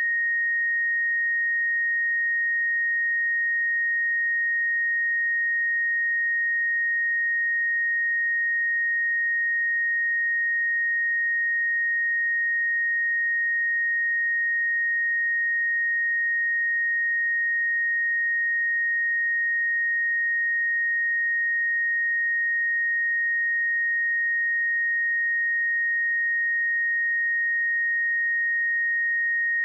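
A pure 1866 Hz sine-wave test tone, held at one steady pitch and level throughout, with no other sound.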